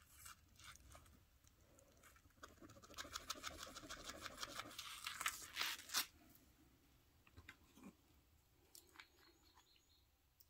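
Faint handling noise: a few seconds of soft rustling and rapid small clicks, ending in a sharper click about six seconds in, then only scattered faint ticks.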